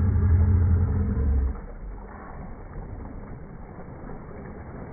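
A loud, steady low rumble that cuts off suddenly about one and a half seconds in, leaving much quieter, even background noise.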